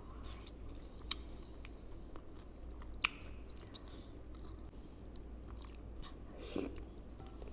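Close-miked chewing of bakso tulang rangup (meatballs with crunchy cartilage) in a spicy sauce, with wet mouth sounds and scattered sharp clicks, the loudest about three seconds in.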